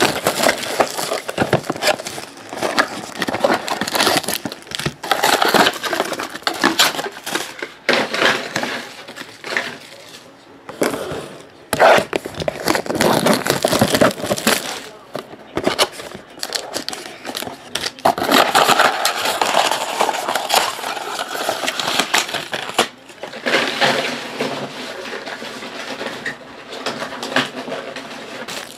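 Plastic shrink-wrap on sealed trading card hobby boxes being torn off and crumpled by hand: loud crinkling and crackling in irregular bursts, with a few short pauses.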